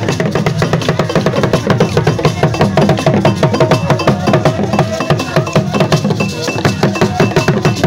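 An ensemble of Ewe barrel drums played with sticks and bare hands in a fast, steady, interlocking rhythm, with sharp stick strikes on top.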